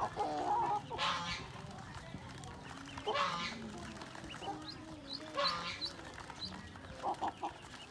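Domestic poultry calling: three loud, harsh calls about two seconds apart, with low hen clucks between them and short, high duckling peeps.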